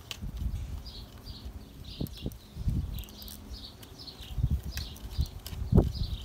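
A bird chirping over and over in short falling notes, about two or three a second, over irregular low rumbling bumps, the loudest a little before the end.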